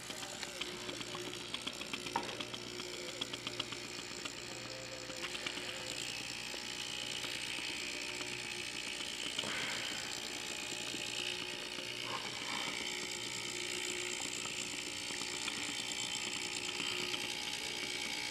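A fog machine's small electric pump running with a steady low buzz and a fine rapid rattle, with a few short puffs as the machine pushes out a little fog. The pump is running but moving only a little fluid.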